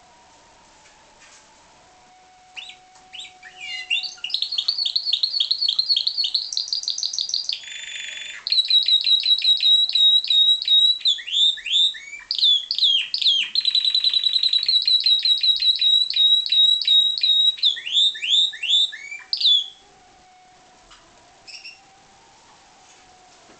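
Spanish Timbrado canary singing one long song of about seventeen seconds: runs of rapid repeated high notes and fast trills, a brief rasping stretch about a quarter of the way through, and a few sweeping notes before it stops.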